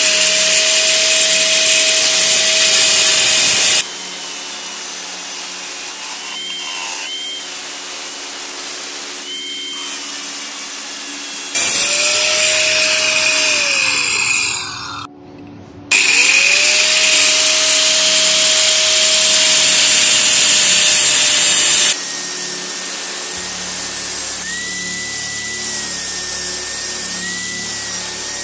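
Angle grinder with an abrasive cut-off disc cutting through a steel circular saw blade, in several short takes joined by cuts. The motor spins up, runs under load through the steel, and winds down once shortly before a brief lull about halfway through.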